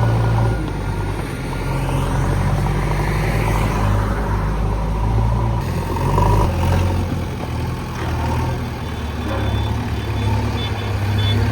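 JCB 3DX backhoe loader's diesel engine running under working load, its speed rising and falling several times.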